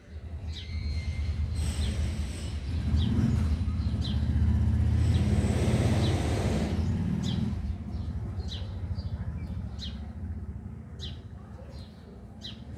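A bird chirps over and over in short high chirps, over a low rumble that swells about three seconds in and fades away by about eight seconds.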